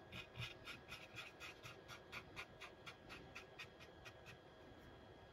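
Nearly dry cotton bud scrubbed in small circles over the plastic side skirt of a 1/35 scale tank model, blending weathering pigment: faint, quick rubbing strokes, about five a second, that die away near the end.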